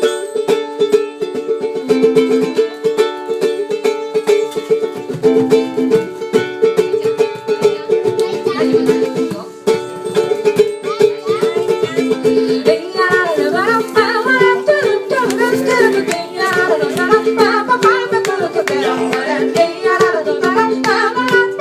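Small acoustic band playing, with plucked string instruments strumming a repeating chord pattern. A wavering melody line joins about halfway through.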